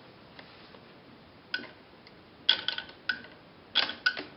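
Hard drive head actuator clicking as its power lead is touched to the battery: about five sharp clicks with a short metallic ring, spread over the last three seconds.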